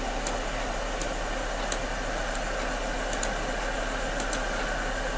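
Computer mouse clicking, about eight short sharp clicks, two of them in quick pairs, over a steady background hiss and low hum.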